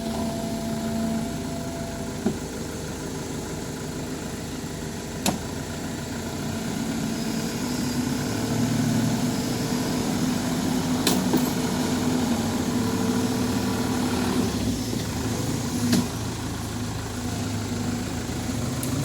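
Heavy diesel machinery engine running steadily, working a little harder from about eight seconds in, with a few sharp knocks along the way.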